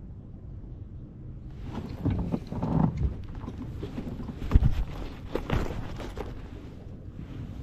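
Handling noise aboard a plastic fishing kayak: a run of knocks, taps and rustles as gear is moved about on the boat, with the loudest knock about four and a half seconds in.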